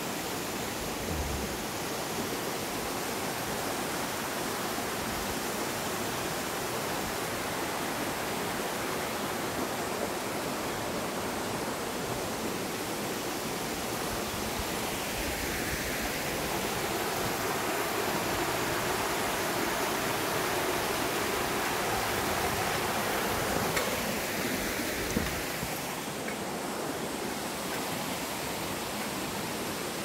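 Mountain stream water running over rocks: a steady rush that swells a little about halfway through.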